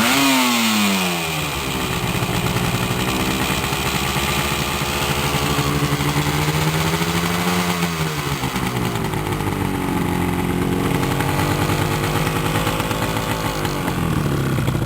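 Yamaha RD250LC's liquid-cooled two-stroke parallel-twin engine, revved briefly at the start and falling back, then running at low revs with slow, gentle rises and falls in engine speed.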